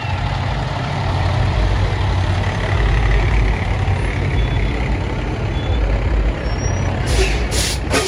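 Low, steady engine rumble of a vehicle running close by. Near the end a run of short bursts of hiss starts, about three a second.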